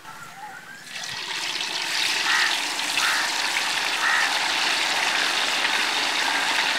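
Marinated chicken pieces dropped by hand into hot oil in a kadai, the oil sizzling: it starts about a second in and grows into a steady hiss as more pieces go in.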